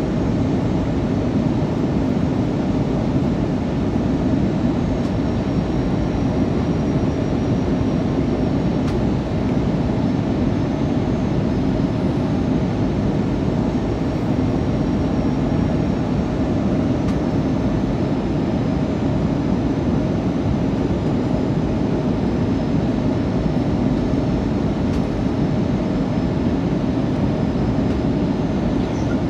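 Steady engine and airflow noise inside the passenger cabin of an Airbus A320 descending on approach to land, even and unchanging.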